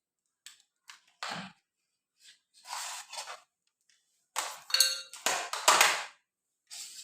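Irregular handling noises: a series of short scrapes and rubs, getting louder in the second half, with a brief metallic ring about five seconds in, as the shorted wires of a rewound ceiling-fan motor are held to the meter leads.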